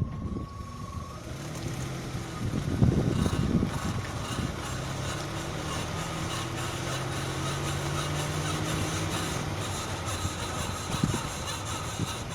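Ford Mondeo Mk3 running with a steady low hum; a squeak from its left wheel is the sound being recorded.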